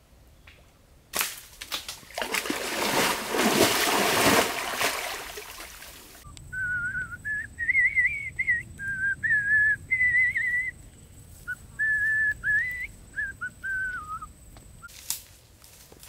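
A loud rushing noise for about five seconds, then a whistled tune of about a dozen held, wavering notes, with a faint steady high tone beneath it. The whistling stops a little before the end.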